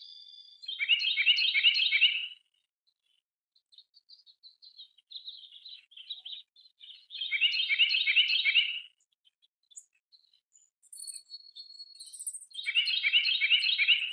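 A songbird singing the same short song three times, about every five to six seconds: each song is a quick run of repeated notes lasting about a second and a half. Softer high chirps come between the songs.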